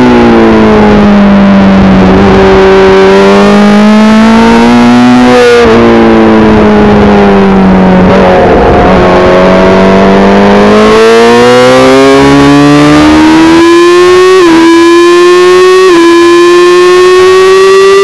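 Yamaha R6's inline-four engine, loud from onboard. The engine note drops as the bike slows into a tight corner and stays low through it. It then climbs steadily under hard acceleration, with two quick upshifts near the end.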